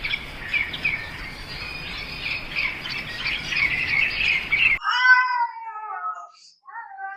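A dense chorus of many small high-pitched chirps over a hiss cuts off abruptly about five seconds in. A cat then meows twice, each call falling in pitch.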